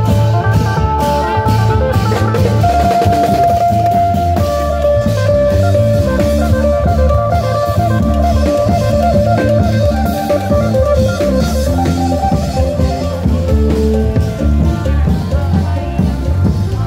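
Loud live Thai parade band music: Thai long drums and cymbals beating a steady rhythm under an electric bass and a sustained melody line, amplified through a wheeled speaker stack with horn loudspeakers.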